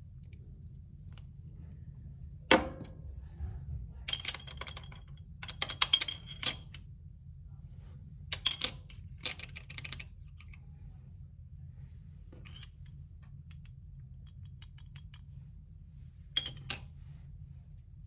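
Scattered clicks and clacks of a clear acrylic stamping block and small ink pads being handled on a desk: one sharp knock about two and a half seconds in, short clusters of clattering taps around four to six seconds and eight to ten seconds, and two more clicks near the end. A steady low hum runs underneath.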